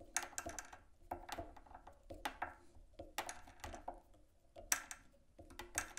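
Light, irregular clicks and rustles, roughly one or two a second, as red floss is wrapped by hand around the hook shank of a fly held in a tying vise.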